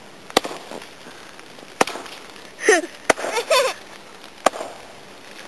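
Axe chopping into the trunk of a fallen tree: four sharp, regular strokes about a second and a half apart.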